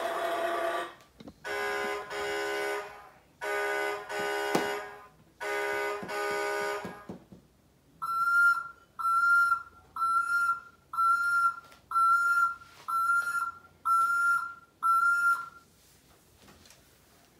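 Electronic sound effects from a Hess toy tow truck's small speaker: three double horn blasts, then eight short high-pitched beeps about one a second, like a backing-up warning.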